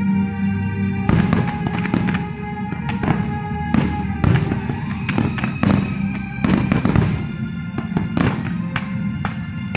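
Aerial fireworks bursting in a rapid, irregular string of bangs and pops, with music playing underneath throughout.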